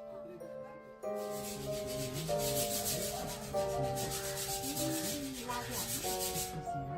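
Gentle background music, with a rhythmic rasping, rubbing sound of about five or six strokes a second over it from about a second in until near the end.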